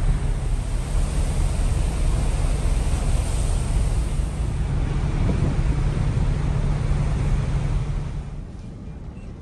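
Wind blowing on the microphone over the steady low rumble of a ferry under way and the sea. The noise drops sharply about eight seconds in, leaving a quieter hiss.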